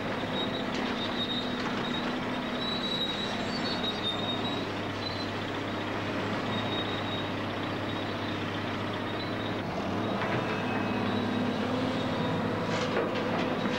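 Heavy earthmoving machinery running: a steady engine drone with a thin, high metallic squeal in the first few seconds, typical of steel crawler tracks. Near the end comes a burst of clattering as a wheel loader dumps rock into a dump truck.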